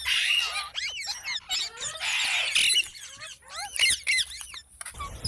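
Pet green parrot calling: a rapid string of squeaky, gliding chirps and squawks, with one harsher, rasping squawk about two seconds in.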